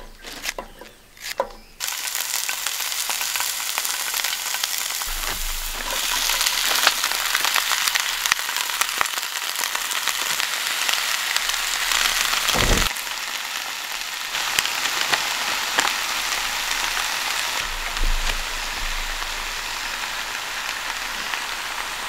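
Sliced cabbage, green onion and squash sizzling steadily in a griddle pan on a portable butane stove. A few short clicks come in the first two seconds, before the sizzling starts.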